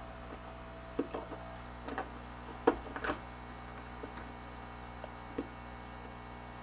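Flush cutters snipping the soldered component leads off a circuit board. About six sharp clicks come at irregular intervals, the loudest a little before the middle.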